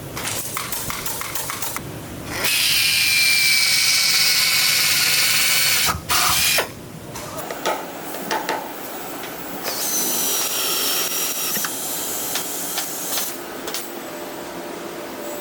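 Power tools working wood: a tool runs loud and steady with a faint whine for about three and a half seconds, then come scattered clicks and knocks, then a second, shorter whining run.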